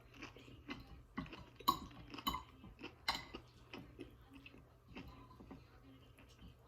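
Cutlery clinking and scraping on a plate as food is mashed together, in scattered clicks with a few sharper ones about two and three seconds in, over a faint steady hum.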